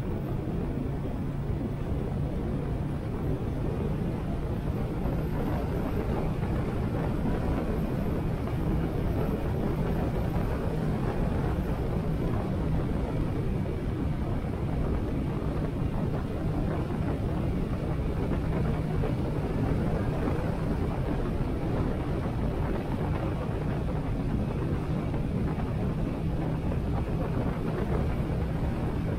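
Harley-Davidson Sportster 883's air-cooled V-twin engine running steadily at cruising speed, heard under wind rushing past a helmet-mounted camera.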